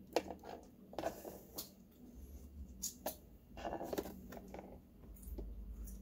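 Irregular clicks and scrapes of a screwdriver driving a Phillips screw into the plastic base of a Black & Decker coffee maker, with the plastic housing being handled.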